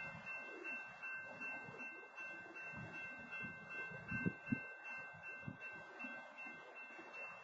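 Faint outdoor background noise through a security camera's microphone, with a steady high whine throughout and two short low thumps about four seconds in.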